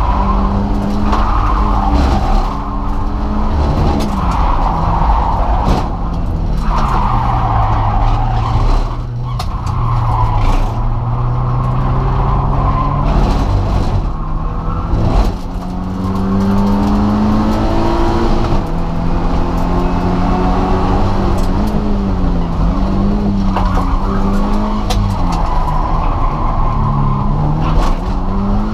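A naturally aspirated 160 hp Subaru Impreza's flat-four boxer engine heard from inside the cabin, driven hard on a track. The revs climb and drop again and again through the gears and corners, with brief dips in level as the driver lifts or shifts.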